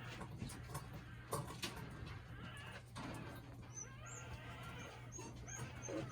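Shiba Inu puppies playing together: scuffling and small knocks with faint animal grunts and squeaks, and a few short, high chirps from about four to six seconds in, over a steady low hum.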